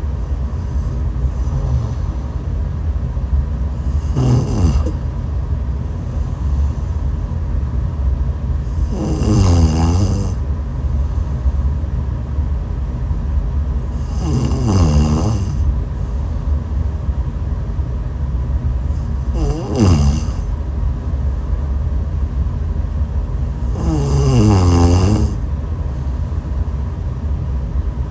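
A person snoring: five snores about five seconds apart, each about a second long with a wavering, warbling pitch, over a steady low rumble.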